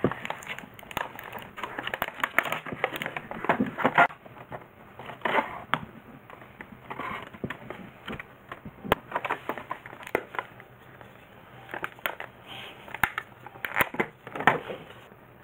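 Clear plastic clamshell packaging being handled and pulled open, crackling and crinkling in irregular spells with a few sharp clicks.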